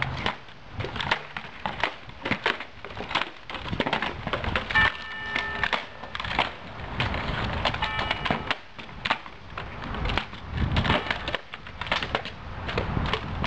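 Irregular sharp clacks and cracks of hard objects striking, several a second, with two brief pitched tones about five and eight seconds in.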